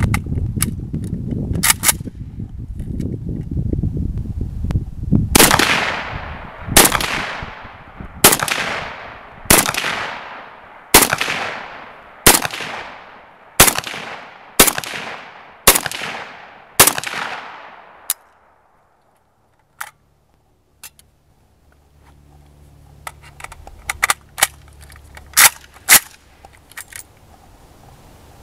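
Semi-automatic fire from a WASR-10/63 AK-pattern rifle in 7.62x39: about ten single shots roughly a second and a half apart, each with a long echo dying away. After a short silence, about five more shots follow with little echo, some in quick pairs. A few clicks and a low rumble come first, as the rifle is readied.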